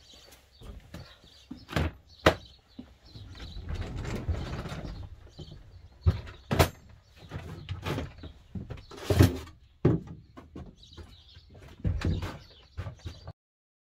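Knocks and clunks of gear being moved about on a van's metal cargo floor, with a rumbling scrape about four seconds in as a wheeled plastic toolbox is rolled away. Plastic fuel cans clunk near the end. Birds chirp faintly in the background, and the sound cuts off suddenly just before the end.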